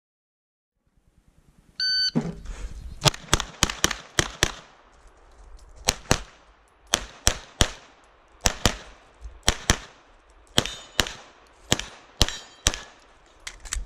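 An electronic shot timer gives one short start beep about two seconds in, and a pistol then fires a long string of rapid shots, mostly in quick pairs with short pauses between them.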